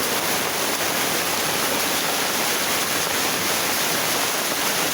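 Heavy downpour mixed with hail, a dense, steady rush of falling water and ice.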